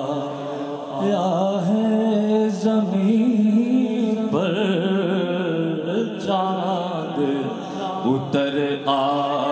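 A man singing a naat, a devotional poem in praise of the Prophet Muhammad, into a microphone. He holds long notes with a wavering ornament and takes a fresh phrase about a second in, again just past four seconds, and again near the end.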